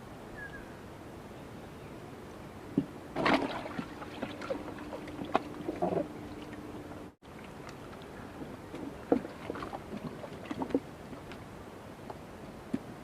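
Scattered knocks and clatter with light water sounds as fishing gear is handled at the water, loudest about three seconds in. A steady hum sounds for a few seconds in the middle, and the sound cuts out for an instant about seven seconds in.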